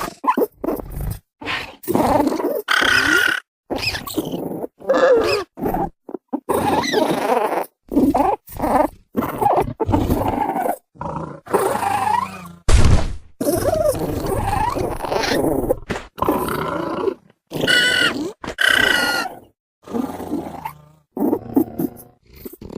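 Ferganocephale dinosaur creature sound effects: a string of short grunts, growls and roars, one after another with brief silent gaps, including a couple of higher-pitched calls late on.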